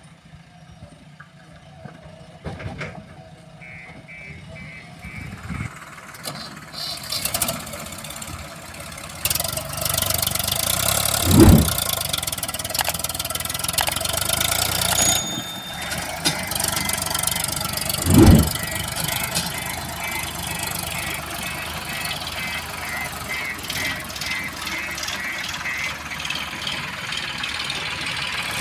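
Swaraj 855 FE tractor's diesel engine running under load as it pulls a trolley heavy with mud, growing much louder about a third of the way in. Two heavy thumps come in the middle.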